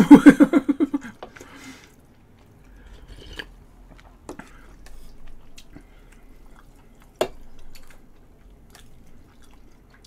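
A voice sounds loudly for about the first second. Then come quiet eating sounds: chewing, and a few sharp clicks of chopsticks against the bowl and pot, the loudest about seven seconds in.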